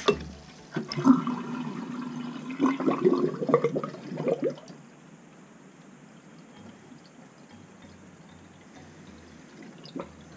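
Bathroom sink drain gurgling loudly as the last water empties down a new pop-up drain, stopping about four and a half seconds in. The plumber puts the gurgling down to the drain being tied into an old lead line. A single click sounds near the end.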